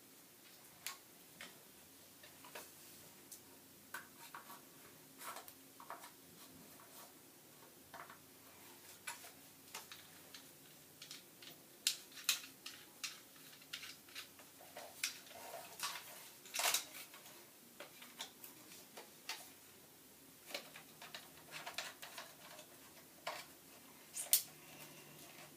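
Irregular clicks and light knocks of a plastic airsoft gun being handled, some sharper clicks standing out now and then.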